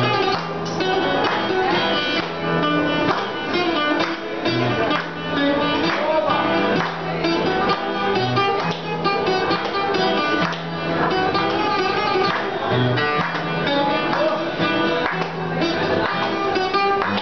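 Acoustic guitar music, strummed and picked over a steady bass line with a regular beat.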